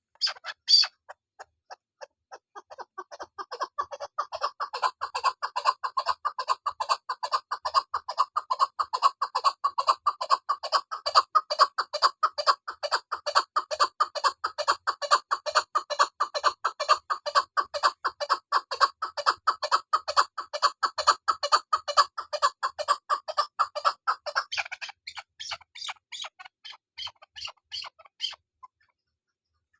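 Female chukar partridge calling: a long, rapid run of short clucking notes, about four or five a second, that builds up over the first few seconds, holds steady, then breaks up and stops near the end.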